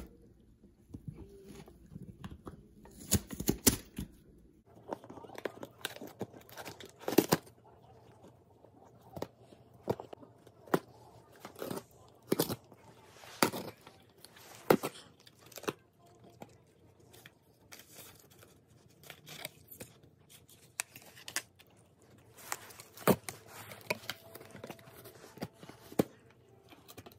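A small Corgi–Chihuahua mix dog biting and ripping apart a cardboard shipping box. The sound is irregular sharp rips and crunches of cardboard, some of them loud, with a quieter stretch past the middle.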